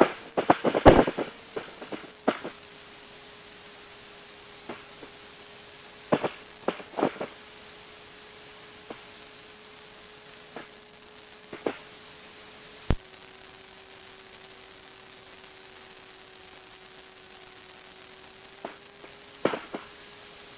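A steady hum with a faint noise hiss on the light aircraft's intercom audio while taxiing. A few short faint bursts and one sharp click come about two-thirds of the way through, after which the hum drops slightly in pitch.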